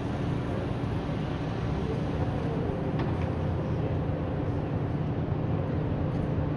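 Steady low mechanical hum, with a faint higher tone joining about two seconds in.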